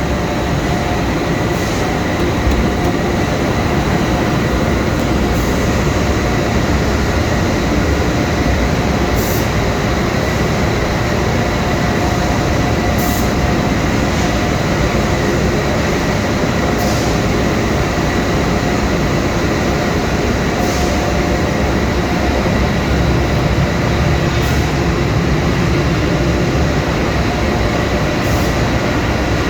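Steady, loud industrial machinery noise with a few steady whining tones running through it, and a faint hiss that recurs about every four seconds.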